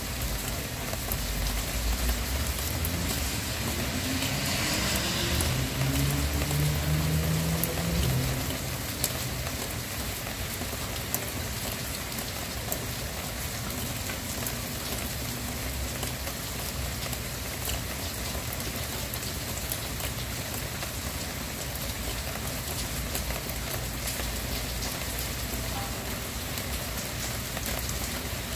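Steady rain falling on a hard surface. In the first few seconds a motor vehicle passes, its engine note rising and then fading back under the rain.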